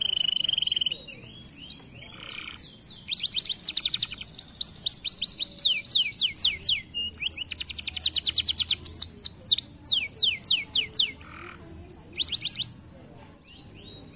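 Domestic canary singing: a short high trill, then long runs of rapid, falling whistled notes, several a second, then after a pause one brief final trill.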